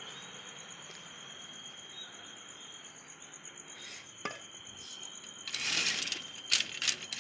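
Crickets chirping steadily. Near the end there is a metallic rattle with a few sharp clinks from a collapsible iron lattice gate being handled.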